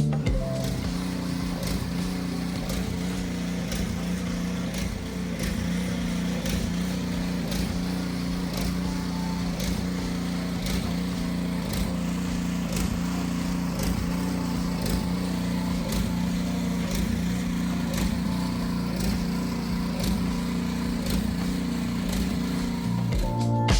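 Small engine running steadily at a constant speed, with scattered faint ticks and clicks over the steady hum.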